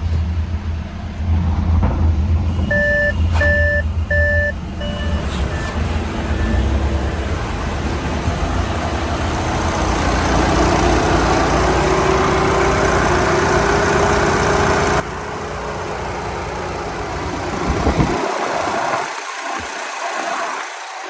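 Audi A6 2.0 TDI four-cylinder diesel engine starting and running, with three electronic warning beeps a few seconds in, then fainter ones, and a pitch that rises gradually through the middle. It is the test run after a new belt idler pulley bearing and drive belt were fitted.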